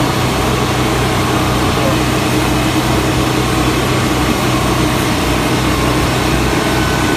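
Kitchen exhaust hood fan running steadily with a constant hum, pulling air hard enough to hold a paper towel against the hood's baffle filters.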